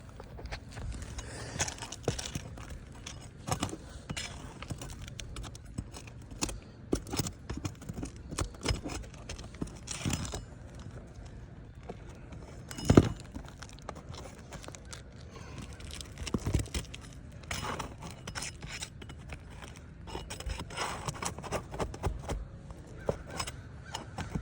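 Hand tools scraping, clicking and knocking against roof shingles as nails are worked out from under them, in irregular short strokes. A single sharp knock stands out about halfway through.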